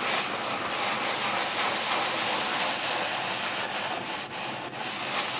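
Kitchen tap running steadily into a sink while dishes are washed by hand, with scattered light clinks of crockery.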